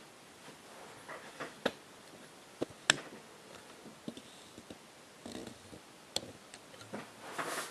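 A few scattered sharp clicks and light taps of a small metal lock cylinder and tools being handled, with a brief rustle between them.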